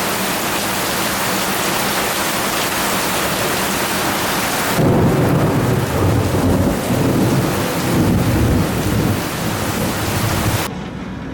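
Heavy rain hissing steadily during a thunderstorm. About five seconds in, a long deep rumble of thunder takes over for about six seconds, then the sound changes abruptly near the end.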